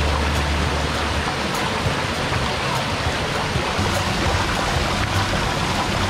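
Waterfall and stream rushing over rocks, a steady even hiss.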